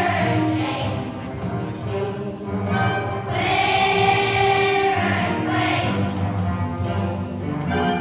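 Children's choir singing a song with musical accompaniment, holding one long note in the middle.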